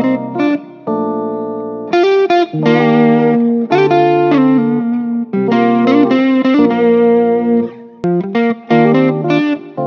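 Background music: a guitar-led tune, some notes held, others played in short quick groups.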